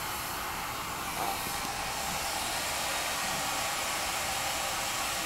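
Electric hair dryer running steadily, giving an even blowing hiss.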